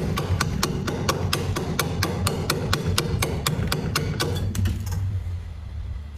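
Quick crunchy scrapes of a tool chipping at thick frost built up inside a freezer, about five sharp strokes a second, thinning out and stopping about five seconds in, over a steady low hum.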